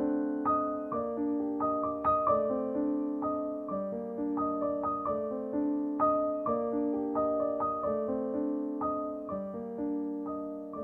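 Background piano music: a melody of notes struck about twice a second, each ringing on over held chords.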